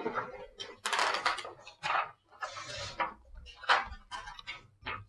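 Laminated plastic-coated cards and sheets being handled and shuffled, giving a series of short rustles.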